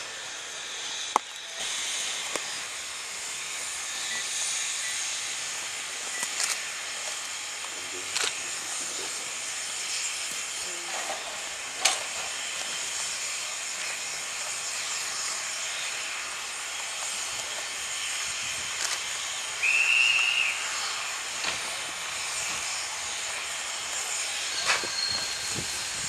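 Ty2 2-10-0 steam locomotive working a train towards the listener, heard as a steady hiss of steam and exhaust with scattered clicks. A brief high whistle sounds about twenty seconds in.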